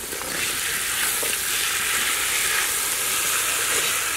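Chopped ivy gourd going into hot oil with fried onions and green chillies in a wide kadai, sizzling steadily.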